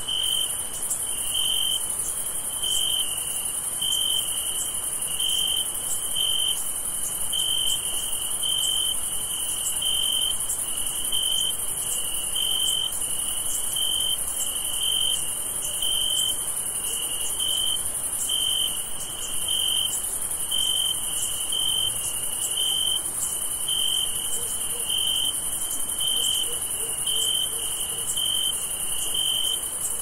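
Crickets chirping in a night chorus: one high chirp repeats evenly, a little more than once a second, over a steady, higher-pitched insect trill.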